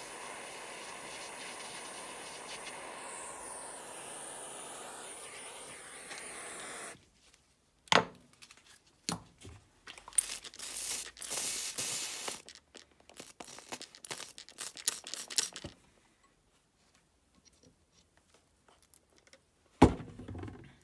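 Handheld butane torch flame hissing steadily while it heats a brass 9 mm shell to flow solder, then shut off about seven seconds in. Afterwards come a few sharp knocks and a stretch of irregular crackling, with one more loud knock near the end.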